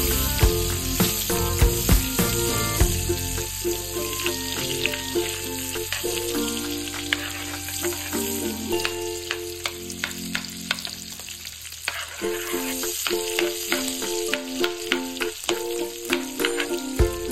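Butter melting and sizzling in hot cooking oil in a steel wok, with a metal ladle scraping and tapping against the pan as it is stirred. Background music plays underneath.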